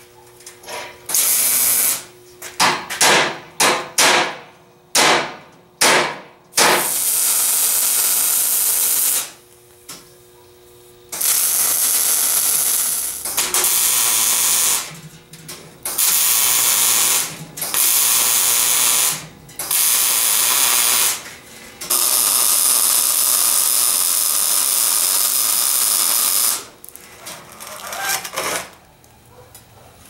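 MIG welder arc crackling as steel water-heater tank pieces are welded together: a quick run of short tack welds a few seconds in, then longer welding bursts of one to four seconds each with pauses between them.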